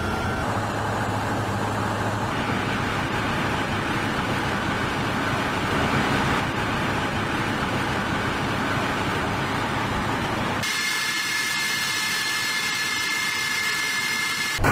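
Steady jet engine noise on an airfield flight line, changing abruptly at several cuts. About eleven seconds in, the low rumble thins out and a steady high whine takes over.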